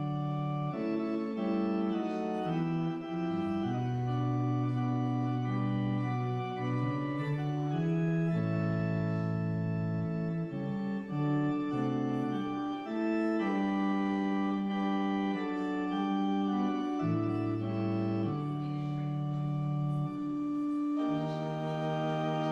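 Organ playing a slow piece of held chords, the notes changing every second or two.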